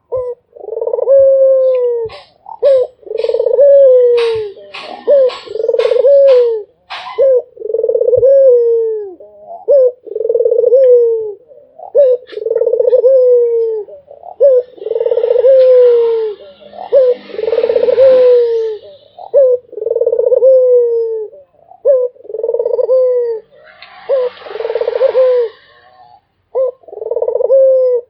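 Ringneck dove (puter) cooing without pause: a long run of deep coos, each about a second long and dipping in pitch, one after another roughly every second and a half. Sharp clicks sound between the first several coos, and two short stretches of rustling hiss come partway through.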